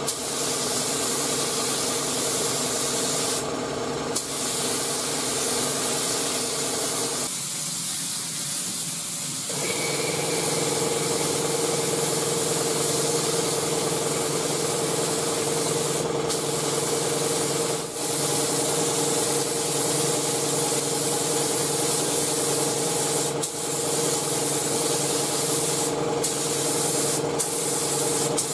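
Compressed-air gravity-feed paint spray gun hissing steadily as blue base coat is sprayed, with a few very short breaks between passes. A steady hum runs underneath and drops out for a couple of seconds about seven seconds in.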